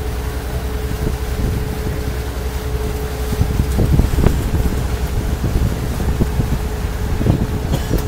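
A motorboat's engine running steadily with a low rumble and a steady hum, under wind buffeting the microphone and water rushing in the wake; louder gusts come about four seconds in and again near the end.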